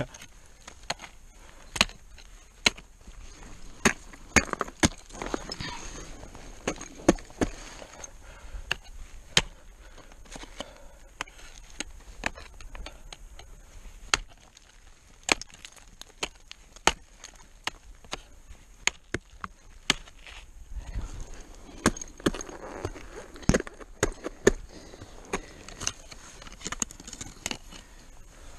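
Ice axes swung into snow-covered ice: a long run of sharp, irregular strikes, about one or two a second, as the picks are driven in and planted.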